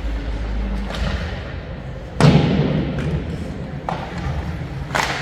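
Ice hockey play echoing in an arena: one loud thud about two seconds in, with several lighter knocks and clacks before and after it.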